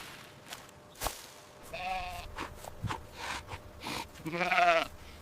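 A sheep bleating twice: a short bleat about two seconds in, then a longer, wavering bleat near the end.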